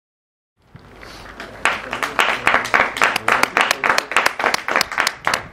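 Small group of footballers and onlookers clapping. Scattered applause builds about a second and a half in, with loud, close claps about four a second standing out over it.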